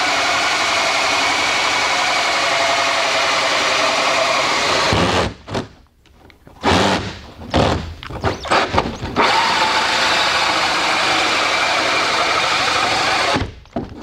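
Cordless drill spinning a 4-inch hole saw through a fiberglass boat panel: a steady cutting whir that stops about five seconds in, comes in several short bursts, then runs steadily again until it stops near the end.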